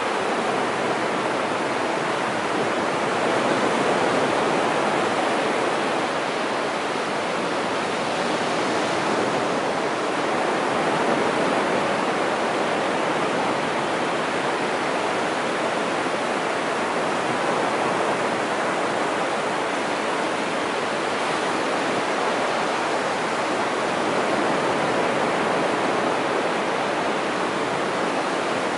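Surf washing up on a flat sandy beach: a steady rush of breaking waves that grows slightly louder a few times.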